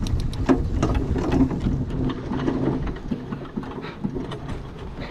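Pony-drawn metal driving cart moving fast over a sand arena: a steady low rumble of wheels and hooves, with many quick rattles and clicks from the cart frame and harness.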